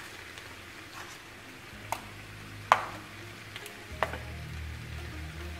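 Three sharp clicks and knocks of a paper seasoning packet and a plastic flip-cap spice shaker being handled over a cast iron skillet, the loudest about two and a half seconds in. A faint low hum underneath grows stronger from about four seconds in.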